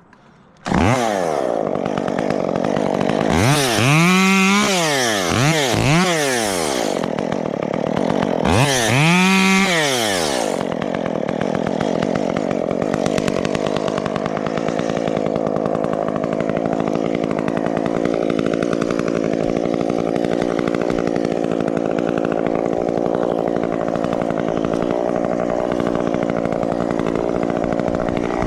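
Chainsaw engine coming in suddenly, revved up and down several times in quick throttle blips, then running steadily at a constant pitch.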